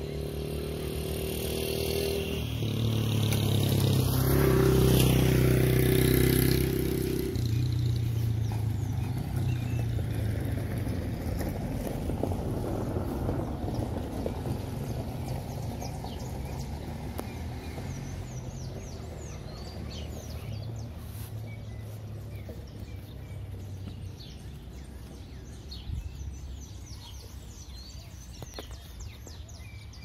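A motor vehicle engine running steadily, growing louder to a peak about five seconds in and then slowly fading away, as if passing and moving off. Faint bird chirps come through in the second half.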